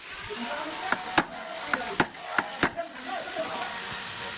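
Sharp knocks on wood during drawer building, about six in quick, uneven succession in the first three seconds, over a steady hiss.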